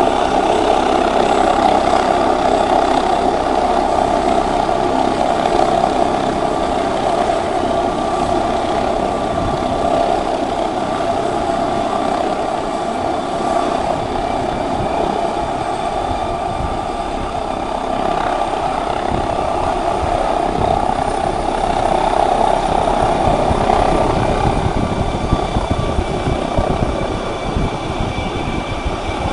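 Air ambulance helicopter running steadily on the ground, then lifting off near the end, when a lower pulsing of the rotor comes in.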